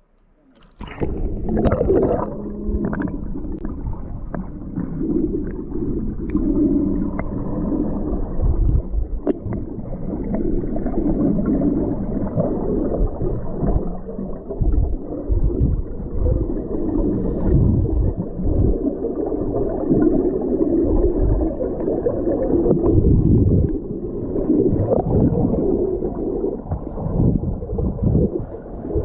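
Muffled underwater sound picked up by a camera in its waterproof housing: water gurgling and rushing, with irregular low thumps and surges from movement in the water.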